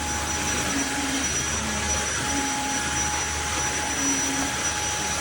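Tineco cordless wet-dry floor vacuum running steadily, its motor giving an even rushing noise with a thin high whine on top.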